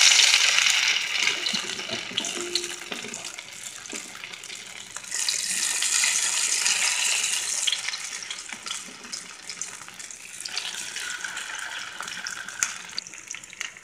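Masala-marinated fish shallow-frying in a little hot oil, sizzling loudly as each piece is laid into the pan and settling to a fainter crackle. The sizzle surges again about five seconds in and once more, fainter, about ten seconds in, as more fish go in.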